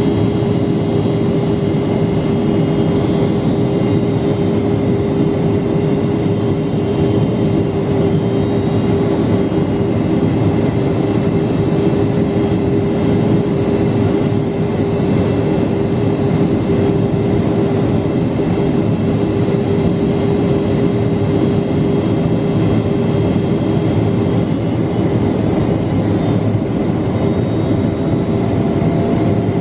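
Cabin noise of a Boeing 777-300 in flight after takeoff: the jet engines' steady drone and rushing airflow, with a constant hum.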